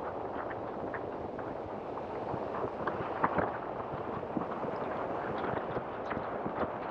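Tyres of a slowly moving vehicle rolling over a wet, gritty road: a steady rushing noise full of small crackles and pops, with one sharper pop a little after three seconds in.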